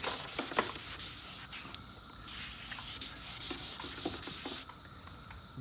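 400-grit sandpaper dry-sanding a plastic headlight lens with repeated back-and-forth strokes, stopping near the end.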